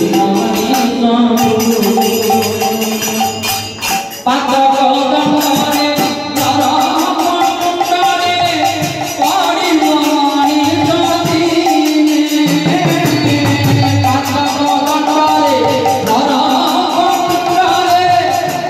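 Male voice singing a devotional bhajan, with metal jingling percussion keeping a steady beat under the melody.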